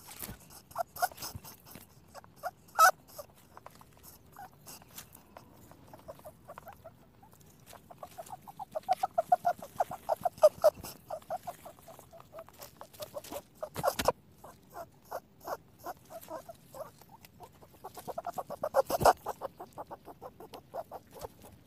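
Rabbit making rapid runs of small clicking sounds, about ten a second, with a few sharper, louder clicks in between.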